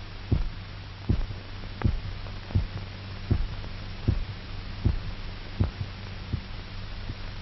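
A heartbeat thumping steadily, about one beat every three-quarters of a second, over a constant low hum.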